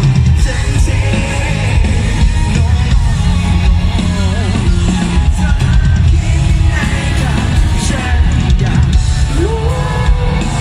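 Loud live band music with a male vocalist singing into a microphone over a heavy bass and drum backing.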